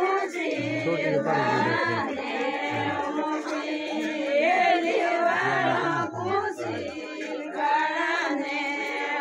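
A group of voices singing a Marwari wedding song, several voices together with wavering melody lines. A stepped low bass line sounds underneath during the first part.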